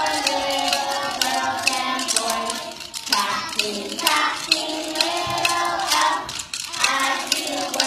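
A group of preschool children singing a song together while tapping wooden rhythm sticks, the sticks giving many quick uneven clicks through the singing.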